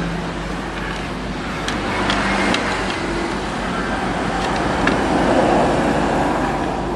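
Hot air rework gun blowing steadily, a constant rushing hiss, used to desolder a resistor from a laptop motherboard; a few faint clicks.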